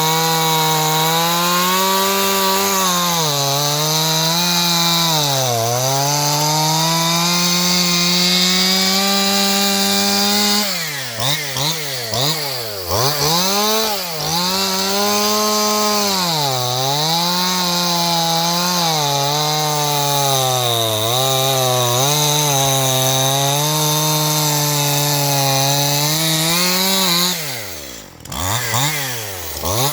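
Stihl MS181 two-stroke chainsaw running near full throttle while cutting wood, its engine pitch dipping as the chain bogs down in the cut and then recovering. From about ten seconds in the revs rise and fall quickly and repeatedly, and near the end they drop sharply for a moment before climbing again.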